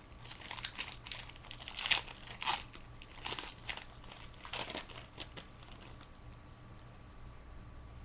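Foil wrapper of a Yu-Gi-Oh booster pack crinkling and tearing as it is opened by hand, in irregular crackles that die away about five and a half seconds in.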